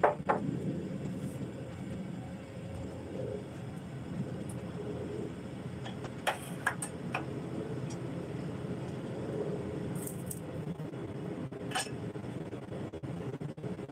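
A steady low rumble, with a few light clicks and taps about halfway through and twice more near the end as chopped garlic is put from a wooden spatula into a steel wok.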